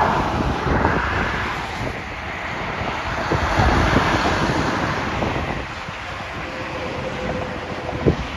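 Road traffic noise with a tractor-trailer passing close, its tyres and engine swelling and fading, while wind buffets the microphone.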